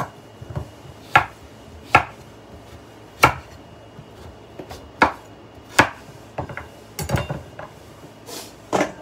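Kitchen knife chopping squash (kalabasa) on a cutting board: single sharp knocks of the blade against the board, roughly once a second, with a quick run of cuts about seven seconds in.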